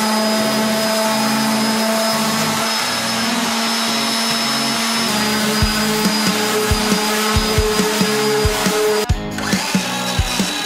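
Random orbital sander running against a wooden frame, under background music that picks up a steady beat about halfway through.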